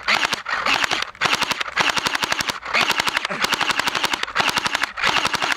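Airsoft machine gun firing full auto in rapid strings of shots, several long bursts with brief pauses between them.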